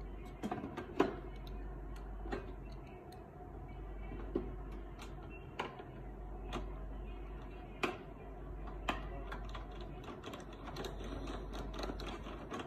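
Irregular small clicks and taps of a screwdriver and screw being worked into the sheet-metal and plastic casing of a Canon LBP6000 laser printer, over a faint steady hum.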